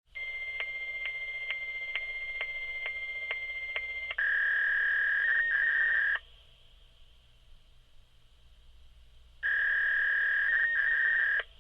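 Fax machine handshake tones over a phone line. A steady high tone with a click about every half second runs for about four seconds, then switches to a louder, lower steady tone for two seconds, falls quiet for about three seconds, and the louder tone returns for two seconds near the end.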